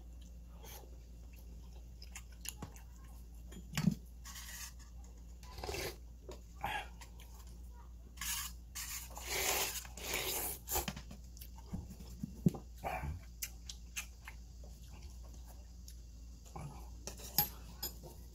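Close-up eating sounds: chewing and slurping cold jjapagetti noodles, with a longer, louder slurp about halfway through as they are shovelled in straight from the tin. Scattered light clicks of metal chopsticks against the metal lunch tin.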